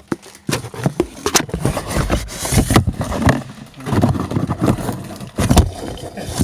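Loud rustling, crackling and scraping with sharp knocks as a snack packet and its box are torn open and handled close to the microphone.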